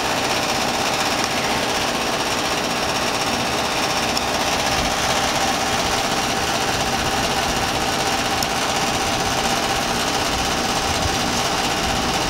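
Broan 3-ton heat pump outdoor unit running steadily, its fan and Copeland scroll compressor humming with a continuous mechanical rattle that the owner puts down to something loose at the top of the unit, not a fault in the heat pump itself.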